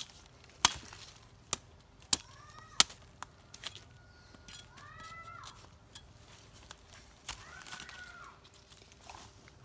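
Four sharp knocks in the first three seconds: a blade chopping at a freshly dug bamboo shoot. A chicken calls three times through the rest, each call drawn out, rising and falling.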